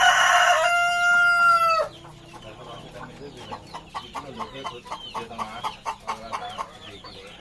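A kampung rooster crows once, a long loud call that drops in pitch at its end about two seconds in. Other chickens cluck and chirp after it.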